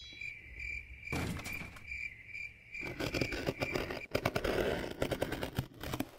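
Crickets chirping steadily, about three chirps a second. About three seconds in, a rapid clatter of clicks and knocks with a rough scraping noise starts and grows louder, drowning out the chirping.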